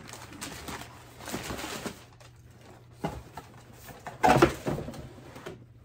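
Tissue wrapping paper rustling and crinkling as it is handled and pulled back from new shoes in their box, with a louder crinkle a little past four seconds in.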